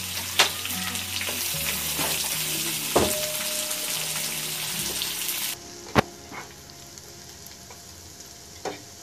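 Chopped onions sizzling in hot oil with whole spices in a frying pan, stirred with a spatula that knocks against the pan now and then. About halfway through, the loud sizzle drops off suddenly to a quieter frying, with a few more spatula knocks.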